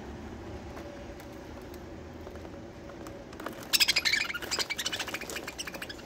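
Budgerigars give a short burst of harsh, rapid squawking chatter about four seconds in. It is loudest at the start and trails off over about two seconds, over a steady low hum.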